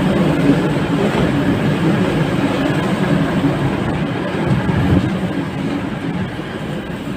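V/Line passenger carriages rolling past close by: a steady rumble of wheels on rail that eases slightly near the end.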